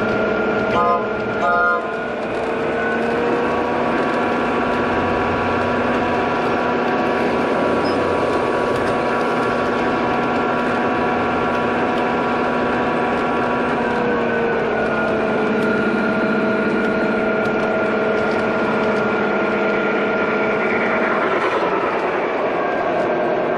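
Bachmann BNSF G-scale diesel locomotive running on its track, heard up close: a steady whine of several tones with rumble from the wheels. The pitch rises a few seconds in and drops about fourteen seconds in as the train's speed changes. Two short loud tones sound about a second in.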